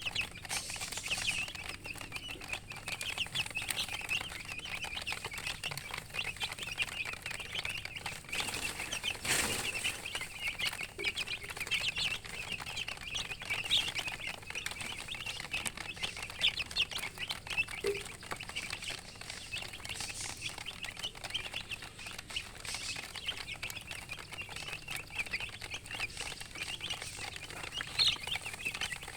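Baby chicks peeping nonstop, many short high chirps overlapping, with a brief rustle about nine seconds in.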